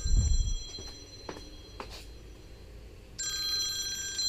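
Phone ringing with an incoming call, an electronic ringtone of steady high tones: one ring ends just after the start and the next begins about three seconds in. A loud low thump at the very start, and a few light clicks between the rings.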